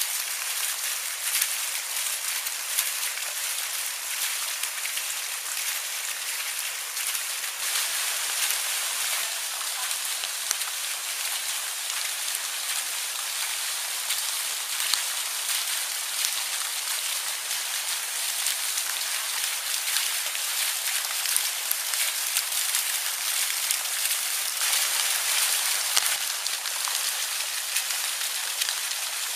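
Steady, dense crackling hiss, a fine patter that keeps on evenly without a break.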